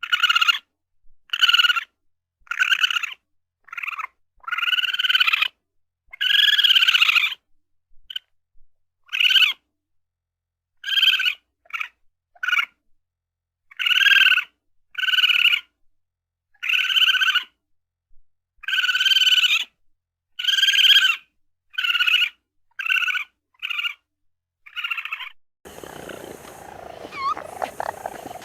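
Raccoon calling: a run of about twenty short, high-pitched calls, each up to about a second and a half, several arching up and down in pitch, separated by clean silent gaps. Near the end a different recording takes over, with a steady background hiss and fainter chirps.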